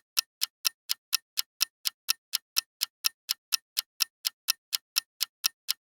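Countdown timer sound effect: a steady clock-like ticking, about four sharp ticks a second.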